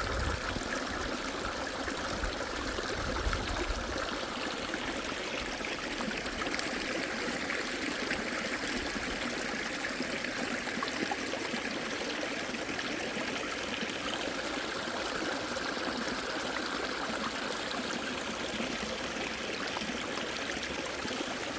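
Stream water flowing steadily, with some low rumbling in the first few seconds.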